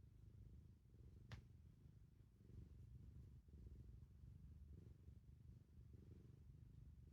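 Domestic black cat purring, a faint low rumble that rises and falls about once a second. A short click comes about a second in.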